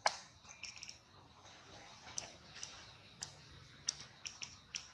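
A series of short, sharp clicks at irregular intervals. The loudest comes right at the start, and a quick flutter of chirp-like ticks follows just under a second in.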